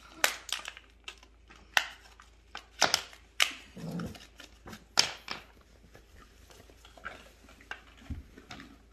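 Plastic blister packaging being handled and pressed, items popping out of it: a scatter of sharp plastic clicks and snaps, several loud ones in the first few seconds, then sparser and quieter.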